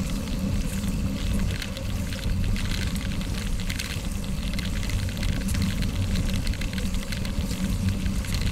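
Steady wind rush on the microphone of a camera on a racing gravel bike, with a fine crackle of tyres rolling over a gravel road at about 20 mph.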